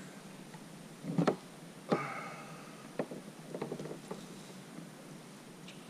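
Handling noises aboard a fishing kayak: a few scattered knocks and clicks, the loudest about two seconds in, followed at once by a brief pitched squeak. A small cluster of clicks comes near the middle.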